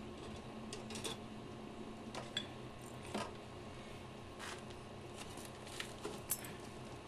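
Scattered light clicks and taps of metal fork parts being handled during a motorcycle fork strip-down, over a steady low hum.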